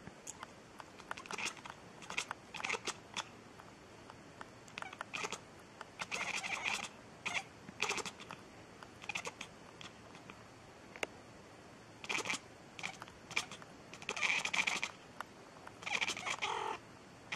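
Cat meowing over and over in short, irregular calls, with a few longer calls about six seconds in and again near the end.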